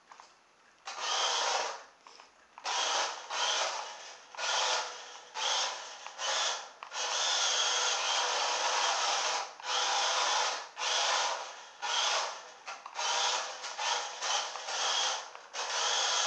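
Small electric drive motor and gears of a toy RC car whirring in repeated short bursts as the throttle is pressed and released, with one longer run of a couple of seconds about halfway through. The car is running on two LiPo cells (2S, 7.4 V).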